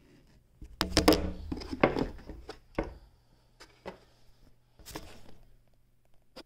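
Knocks and clatter of wood and metal as a sewing machine in its wooden case is handled, a dense run of knocks from about one to three seconds in, another short cluster around five seconds and a sharp click near the end, over a faint steady low hum.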